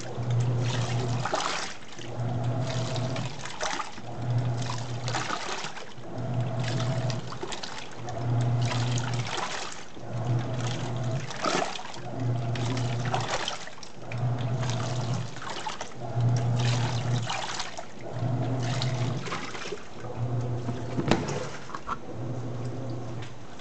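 TECO 10 kg stainless-steel washing machine in its wash cycle: the motor hums as it drives the wash action in short strokes of about a second, with a short pause between strokes, about one every two seconds, while the water churns and splashes in the tub.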